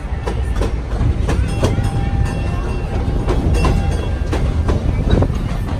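Cedar Point and Lake Erie Railroad steam train's passenger car rolling along the track: a steady low rumble of wheels on rail with irregular clanks and rattles.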